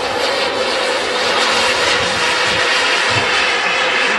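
Frank model gas turbine of a large-scale RC Lockheed U-2 jet running in flight as the model flies past: a loud, steady rushing jet noise.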